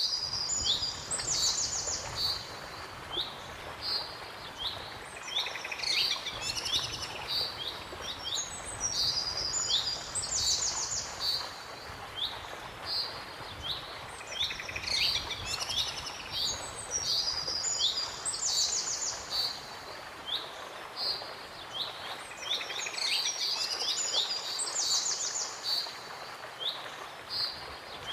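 Songbirds singing in repeated phrases of bright chirps, fast trills and short falling notes, over a steady rushing of waterfall water.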